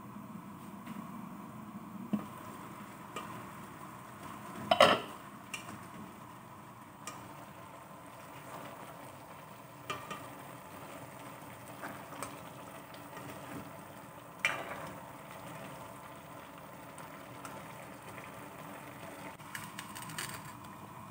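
Chicken and papaya cooking in an aluminium pot under a steady low hiss, stirred with a plastic ladle that scrapes and knocks against the pot's sides now and then. There is a louder clatter about five seconds in.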